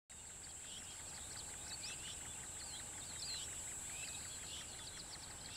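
Faint birdsong: many short chirps and trills over a steady high-pitched whine.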